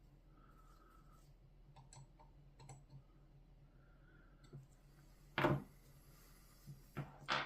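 Light clicks of handling on a workbench, then a sharp knock about five and a half seconds in and two more quick knocks near the end.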